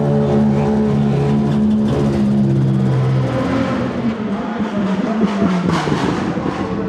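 Mercedes-AMG C63 DTM race car's 4.0-litre V8 running at steady revs, then the steady tone gives way to a rougher, uneven sound with a few sharp pops after about three seconds.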